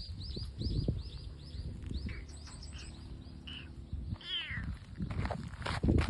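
Young kitten mewing, with one thin high cry about four seconds in. A string of quick high chirps repeats about three times a second over the first second and a half.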